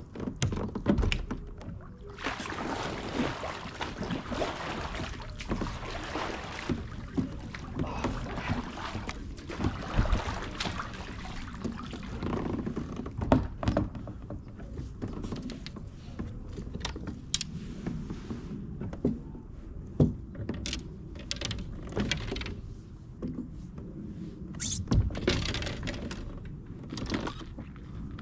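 Water and wind noise around a fishing kayak, with many scattered knocks and thumps of gear and hull being handled.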